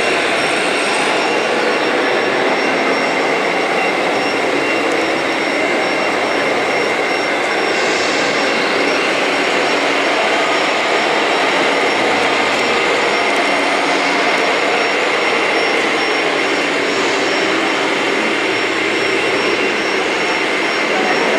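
Radio-controlled model truck running: a steady mechanical noise with a thin, high, constant whine over it.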